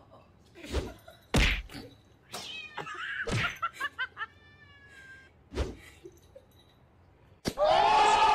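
Cats meowing and yowling in a run of short calls, with several sharp thumps scattered through; a loud, sustained cry starts near the end.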